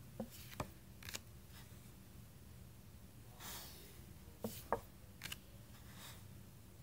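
Tarot cards being handled: a card slid off one pile and laid onto the other, with a few light clicks and taps of card stock and soft sliding swishes between them.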